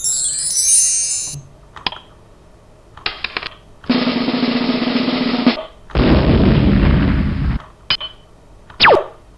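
Microsoft PowerPoint's built-in sound effects played one after another. In order: a high glittering chime, a click, a short clink, a drum roll of about two seconds, a low explosion, a single knock, and a quick falling laser zap near the end.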